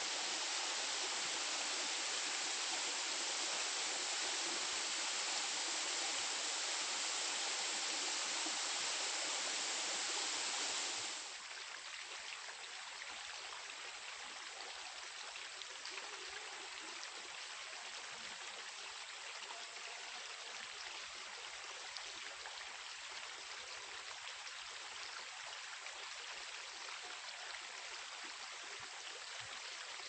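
Water flowing over rainforest creek cascades in a steady rush. About eleven seconds in it drops abruptly to a quieter flow.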